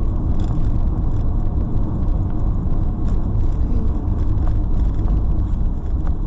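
Steady low rumble of a car driving on a snow-packed road, picked up by a dashcam inside the cabin, with a few faint clicks.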